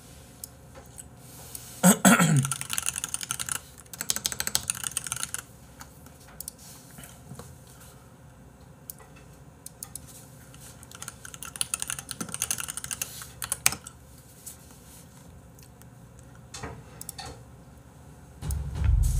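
Computer keyboard typing in several short bursts, with scattered single key or mouse clicks between them. A brief downward-sliding sound opens the first burst, and a low rumble sets in near the end.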